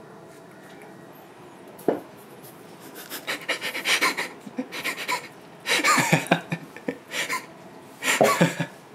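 A cat chewing and smacking on a piece of raw tuna sushi in quick, irregular bursts. A single knock comes about two seconds in.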